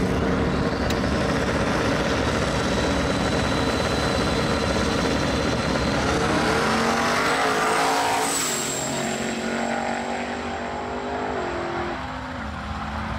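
Two drag-race vehicles, a turbocharged Chevrolet pickup and a Chevelle, running at the starting line and then launching about six seconds in. The engines rise in pitch as they accelerate away, a high whistle comes in around the middle, and the pitch drops near the end.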